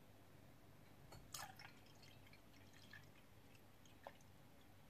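Faint splashes and drips of water being poured into a pot of soaked rice-flour batter, a few soft splashes against near silence, the clearest about a second in.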